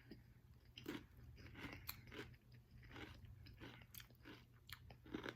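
Quiet close-up crunching and chewing of a hot-and-spicy Quest protein chip: a string of short, sharp crunches as the chip is bitten and chewed.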